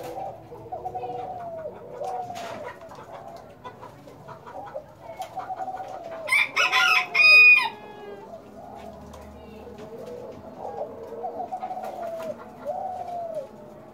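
Spotted dove (Kelantan-type derkuku) cooing in repeated phrases, the coo a little hoarse. A rooster crows loudly once, about halfway through, over the cooing.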